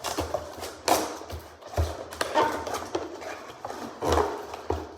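A cardboard box being handled and opened, with irregular knocks, taps and scraping.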